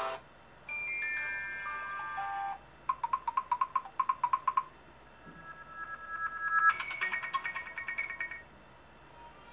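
Three short Nokia Lumia 1020 stock phone tones played one after another, each with a brief gap between. The first is a falling run of held chime-like notes, the second a fast pulsing beep pattern, and the third a two-note tone that breaks into a rapid trill.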